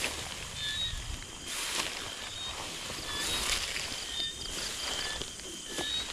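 Outdoor ambience: short high chirps repeating throughout, a few rustling brushes, and wind rumbling on the microphone.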